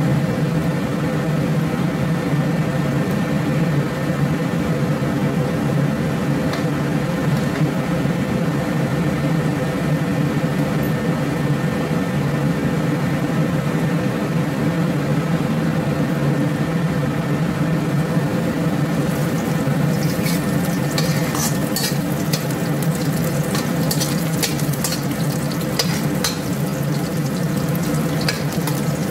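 A steady mechanical hum runs throughout. About two-thirds of the way in, chopped garlic starts crackling and sizzling in hot oil in a wok, with a metal spatula stirring and scraping.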